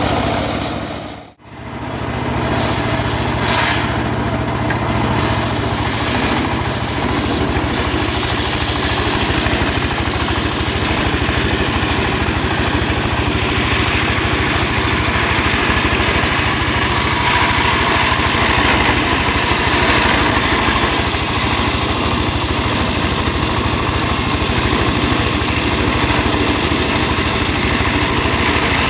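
Engine-driven circular sawmill running steadily, its blade ripping lengthwise through a sengon log with a continuous hissing rasp. The sound cuts out briefly about a second in.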